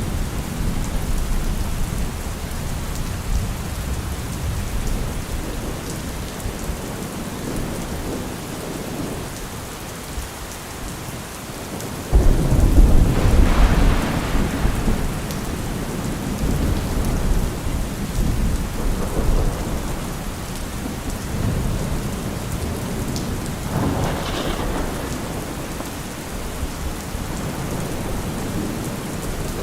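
Steady rain falling, with thunder rumbling low throughout. About twelve seconds in a sudden loud thunderclap breaks and rolls off over a few seconds, and a weaker roll of thunder follows later.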